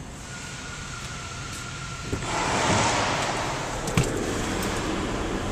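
Car door being opened and entered: a latch click about two seconds in, then louder rustling and rushing noise, and a second sharp click near four seconds. A low steady hum runs underneath.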